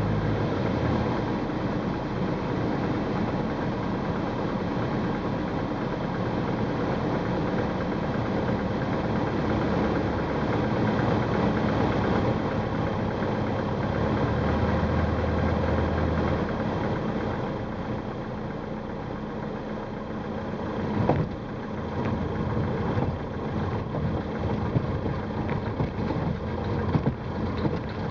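Light aircraft's piston engine and propeller running steadily, heard from inside the cabin during a touch-and-go on snow. The engine eases off a little past the middle. Then a run of bumps and knocks comes as the aircraft rolls along the snow.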